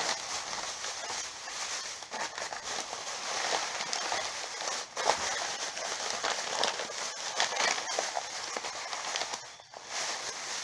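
Rustling and crinkling of plastic trash bags and packaging being rummaged through, a continuous crackle of small clicks.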